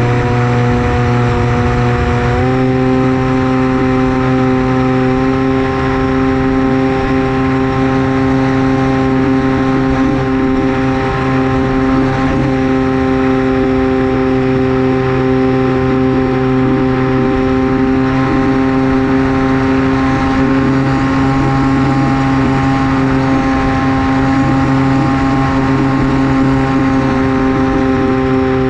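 Electric motor and propeller of a Versa Wing flying wing, a steady pitched whine heard from onboard with air rushing past. The pitch steps up slightly about two seconds in as the throttle is raised, then holds.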